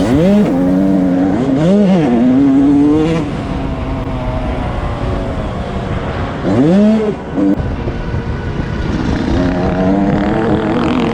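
Dirt bike engines revving, the pitch climbing and falling sharply as the throttle is worked: quick revs at the start, around two seconds in and again about six and a half seconds in, with steadier engine running in between and near the end.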